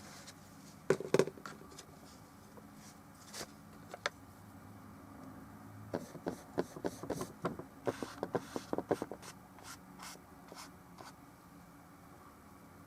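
Paintbrush strokes and dabs scratching on a small oil painting, with a sharp knock about a second in and a quick run of short scrubbing strokes from about six to nine seconds in.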